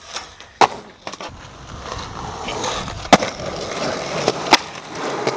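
Skateboard wheels rolling on pavement, the rolling growing louder after the first second, with three sharp clacks of the board: one about half a second in and two more around three and four and a half seconds in.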